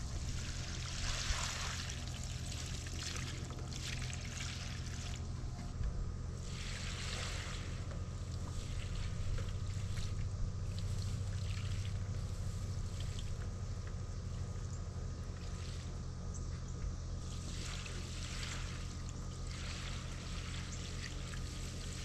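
Water pouring and trickling into a rice paddy herb planter as it is refilled to its level, the splashing swelling and easing several times over a steady low hum.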